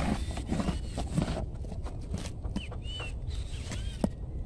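A horse chewing a carrot close up, with irregular crunches and a sharp click near the end. Small birds chirp repeatedly in the background.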